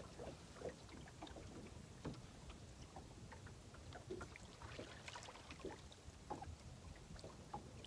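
Near silence on a small boat: a faint low rumble with scattered soft irregular ticks, water lapping at the hull.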